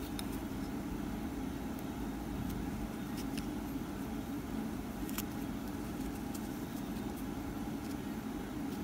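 Steady low background hum, with a few faint light clicks scattered through it.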